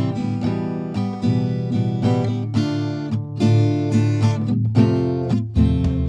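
Background music: strummed acoustic guitar chords in a steady rhythm.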